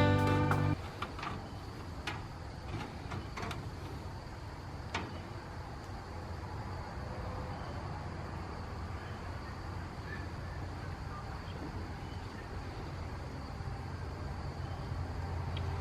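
A steady low hum with a few sharp knocks in the first five seconds; strummed guitar music ends in the first second.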